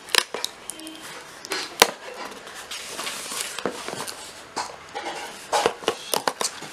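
A shipping package being opened by hand: packaging rustling and tearing, with sharp snaps and clicks about a quarter second in, near two seconds, and several more between five and six and a half seconds.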